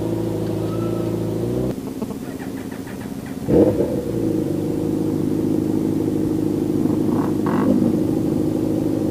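Motorcycle engine running at a steady pitch under way, its note shifting about two seconds in, with a brief loud rising sound about three and a half seconds in.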